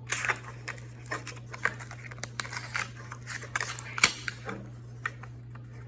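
Small plastic toy packaging being handled and opened by hand: crinkling and rustling with a run of short clicks and snips, and one sharp click about four seconds in, over a low steady hum.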